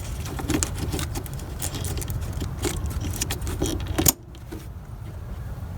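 Light clicking and rattling of air-intake parts and bolts being handled and fitted together by hand, ending in a sharper click about four seconds in.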